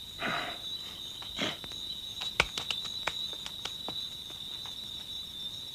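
Crickets chirring in one steady high note, with a scattered few light clicks and ticks.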